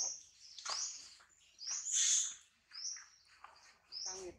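Macaque crying out in distress: a run of short, high-pitched squeals, each sliding down in pitch, the loudest about two seconds in.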